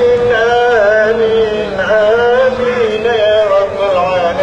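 A single voice chanting a slow, ornamented melody in long held notes whose pitch wavers up and down, with only brief breaths between phrases.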